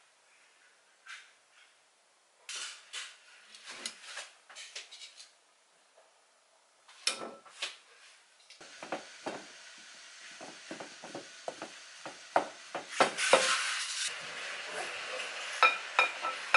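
Kitchen utensils clinking and tapping against metal and glass bowls while boiled potatoes are handled for potato salad. Scattered clicks at first, then a denser run of knocks from about halfway through.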